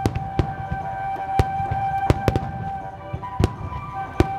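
Fireworks going off: a string of sharp bangs at irregular intervals, several a second at times, from shells bursting over the sea. Behind them, music holds one long, steady note.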